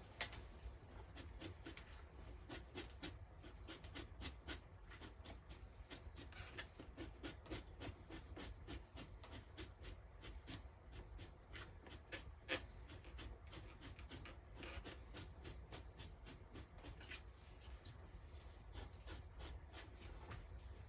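Faint, quick scraping of a Victorinox knife blade drawn over a beaver pelt, cutting fat and gristle off the hide in short irregular strokes, several a second. Two sharper clicks come through, one right at the start and one about halfway through.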